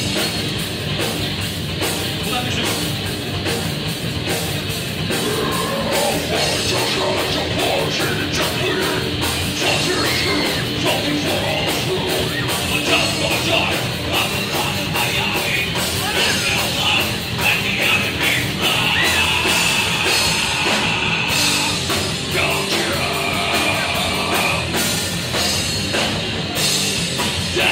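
Hardcore metal band playing live: electric guitar and drum kit with yelled vocals, loud and continuous.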